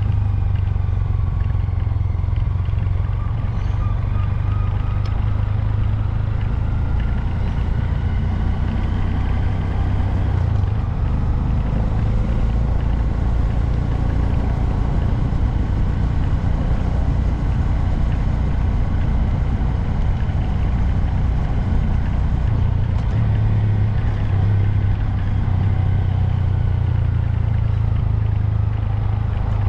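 2022 Honda Grom's 124 cc single-cylinder engine running while riding, steady throughout, its pitch rising and falling slightly.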